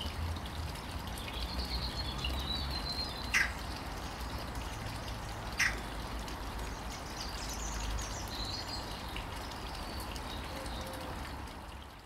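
Outdoor ambience: a steady low rumble with faint, high bird calls, and two sharp clicks about two seconds apart.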